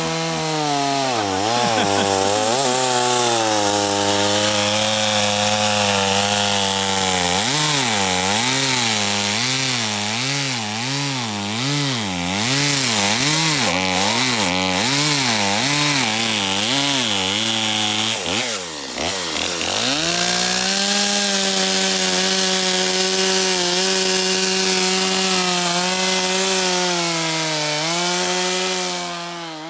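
Two-stroke chainsaw cutting into a poplar trunk. Through the middle of the cut its engine speed rises and falls about once a second; it then runs steady and eases off near the end.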